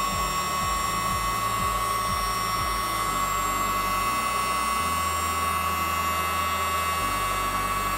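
Hot-air gun running steadily: the rush of blown air with a steady high whine from its fan motor.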